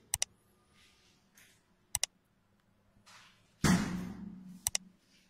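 Three sharp double mouse clicks, about two seconds apart, from the subscribe-button animation. About three and a half seconds in comes the loudest sound, a brief rush of noise with a low hum under it.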